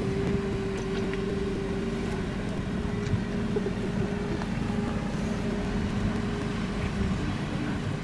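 Engine of a Starke amphibious backhoe dredger running steadily: an even low hum with a held tone over it.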